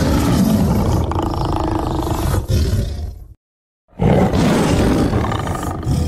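Big-cat roar sound effects: one long roar that cuts off suddenly about three and a half seconds in, then after a short silence a second roar begins.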